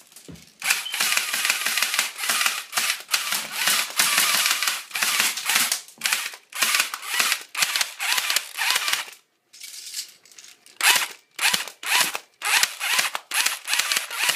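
Airsoft gun firing in rapid bursts, a dense rattle of shots. There is a pause of about a second and a half past the middle, then more bursts.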